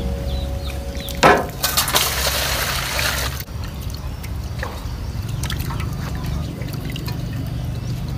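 A knock about a second in, then water poured into an aluminium basin with a loud rush for about two seconds, followed by softer splashing and trickling as fish are rinsed in a wicker basket over the water.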